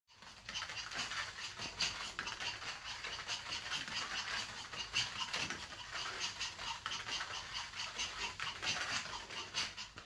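Small dogs' feet pattering and their nails clicking in quick, uneven runs of light taps on a floor play mat.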